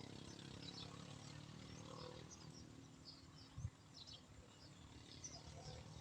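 Faint open-air ambience: scattered small bird chirps over a low steady rumble, with one brief low thump a little past halfway.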